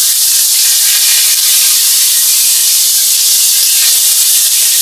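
Curry leaves and green chillies sizzling in hot tempering oil in a frying pan: a loud, steady hiss as the fresh leaves fry.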